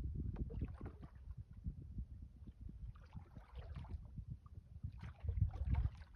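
Water splashing and knocking around a small wooden skiff under way, over a low rumble of wind on the microphone; the splashing swells twice, about three seconds in and again near the end.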